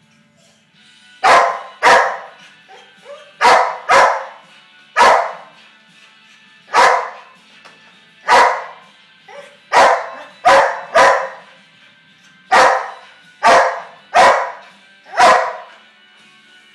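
Wheaten Terrier barking repeatedly, about fourteen sharp barks at an uneven pace with a few softer yips between them. This is anxious barking, which the owner traces to the room's ceiling fan.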